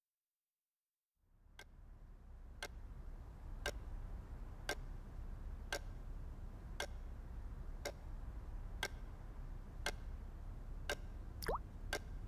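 A mantel clock ticking steadily, about once a second, over a low steady hum; the ticks begin about a second in. Near the end a short rising blip sounds between ticks.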